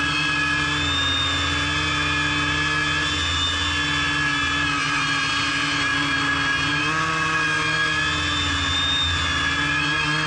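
Quadcopter's electric motors and propellers whining steadily as it hovers, heard from its onboard camera. The pitch drifts a little up and down, rising briefly about seven seconds in as the motors adjust to hold position.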